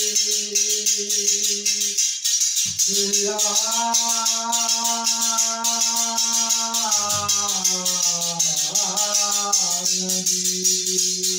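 Chimta jingles struck in a steady rhythm, about four or five strokes a second, under a man singing long held notes of a Punjabi naat. The voice breaks off briefly about two seconds in, comes back higher, then slides down around seven seconds.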